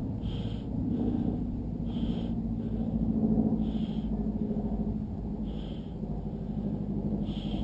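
Slow footsteps on a dirt hiking trail, about one step a second with alternate steps louder, over a steady low rumble.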